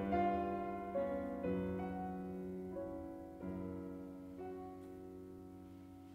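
Slow, gentle background piano music, single notes and chords entering one after another and slowly growing quieter.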